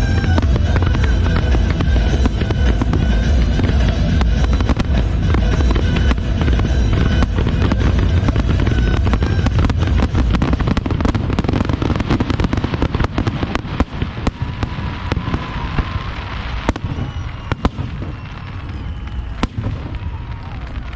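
Fireworks bursting and crackling in a dense, continuous barrage over music, with a heavy low rumble. The barrage thins after about 13 seconds to scattered sharp cracks.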